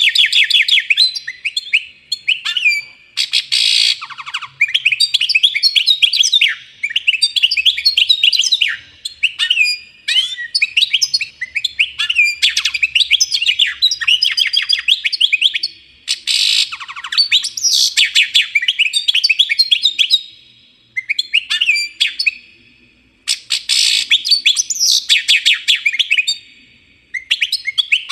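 Small birds chirping rapidly and continuously, in runs of high, quick chirps a few seconds long with short breaks between them.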